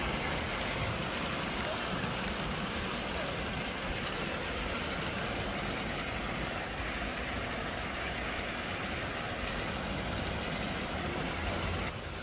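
Steady rush of running water, an even hiss-like noise that holds unchanged throughout.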